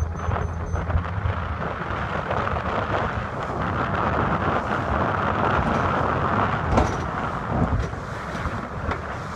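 Wind buffeting the microphone and water rushing along the hull of a sailboat under way while racing, swelling toward the middle and easing off near the end.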